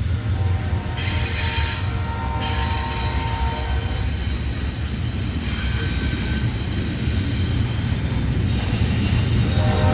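Wheels of a double-stack container train squealing as the cars round a curve, over a steady low rumble of rolling wheels. The squeal comes and goes, strongest from about one second in and again near the end.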